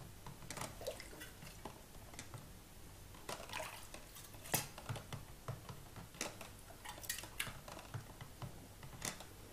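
Faint dripping and small splashes of water as an anodised aluminium sheet, held on a wire, is moved about in a plastic tub of demineralised rinse water, with scattered light clicks. This is the rinse that takes the excess red dye off the part.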